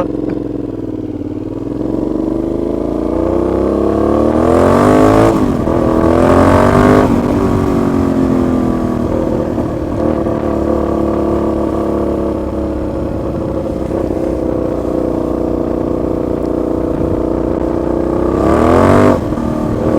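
Aprilia Shiver 750 V-twin motorcycle, running loud on an open, unsilenced exhaust, accelerating hard: the revs climb and fall at upshifts about five and seven seconds in, hold through a steady stretch, then climb and drop again near the end.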